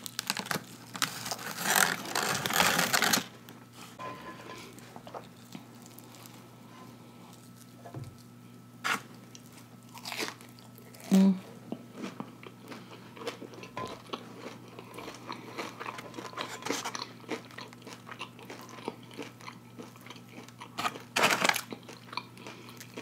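Crunchy bite into a crispy breaded fried catfish piece, followed by steady chewing with small mouth clicks and smacks; a second loud crunch comes near the end.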